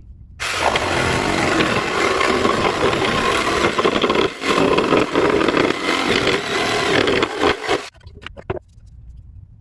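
A power tool working wood, running loud and steady, cutting in abruptly and stopping suddenly after about seven and a half seconds, followed by a few light knocks.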